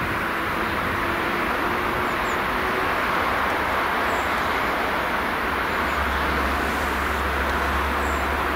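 Distant diesel locomotive hauling a freight train towards the listener, its engine a low steady drone that grows stronger about six seconds in, over constant background noise. A few faint bird chirps.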